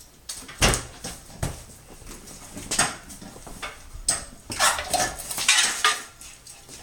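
Hard objects being handled: a string of knocks and clatters, the loudest about half a second in, with a longer stretch of scraping and rustling in the second half.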